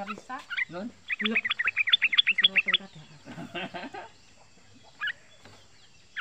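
Young male yellow-vented bulbul singing: a few notes, then from about a second in a fast rolling run of rising-and-falling chirps lasting nearly two seconds, the rapid 'ropel' song. A lower, denser chattering follows at about three and a half seconds, then single short chirps near the end.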